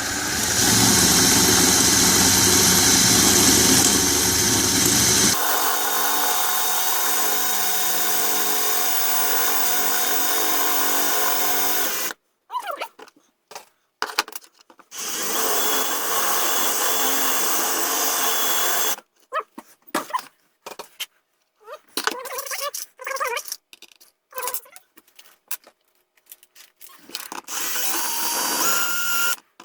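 Cordless drill boring out a rivet from a power strip's housing. It runs for about twelve seconds, hardest in the first five while the bit bites, then in short stop-start bursts, another run of about four seconds, more bursts, and a last short run near the end.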